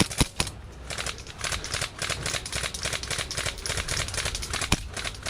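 Airsoft gunfire in a skirmish: a rapid run of sharp clicking shots, with a few louder single cracks near the start and near the end.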